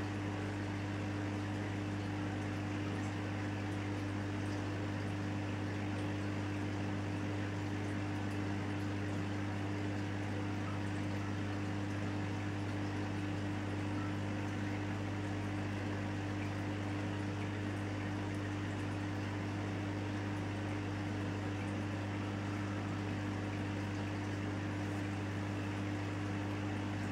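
Steady hum of an aquarium pump, a low drone with fainter overtones, over an even hiss of moving water.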